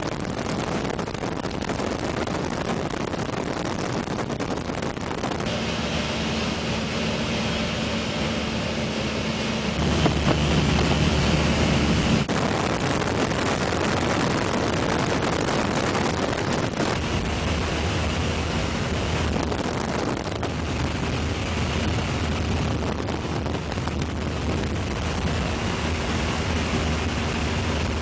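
Steady aircraft engine and wind noise with a low hum that shifts in pitch and strength a few times, growing louder for a couple of seconds about ten seconds in.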